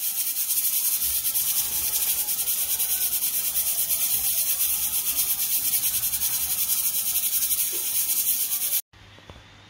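Steam hissing hard and steadily from a stovetop pressure cooker's valve as its pressure is let down before opening, stopping abruptly near the end.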